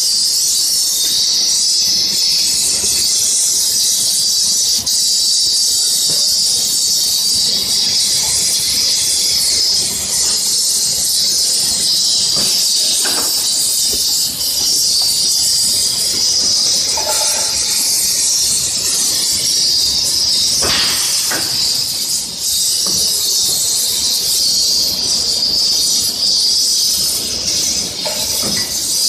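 Hand-held gas welding torch burning with a steady high hiss, with a few light metallic clinks from the welding fixture.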